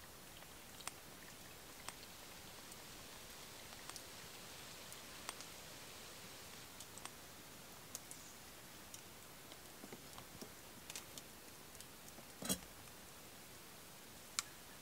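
Quiet handling of an AeroPress coffee maker being plunged into a metal mug: faint scattered clicks and ticks, then one louder knock near the end as the press is lifted off the mug.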